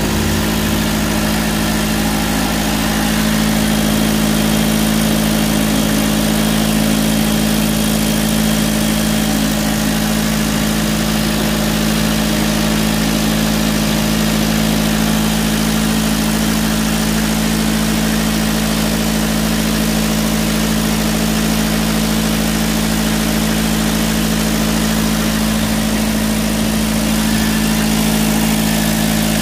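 Diesel engine with an inline mechanical injection pump running steadily at a constant speed, with a strong, even hum.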